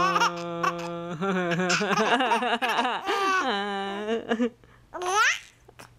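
Two-month-old baby cooing and giggling. An adult's long, steady held vocal note runs for about the first second, and a quick rising squeal comes near the end.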